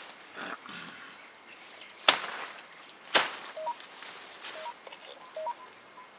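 Two sharp cracks about a second apart, followed by a few short, faint chirps.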